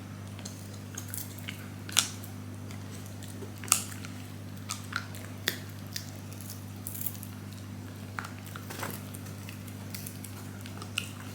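A Shiba Inu chewing, with irregular small clicks and crunches over a steady low hum.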